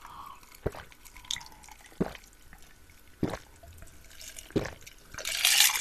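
A person gulping iced cola from a glass mug: four swallows about a second and a half apart, then a louder rush of noise near the end.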